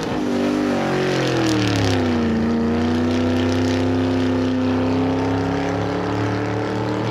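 Race car engine running hard, its pitch falling over the first couple of seconds and then holding steady.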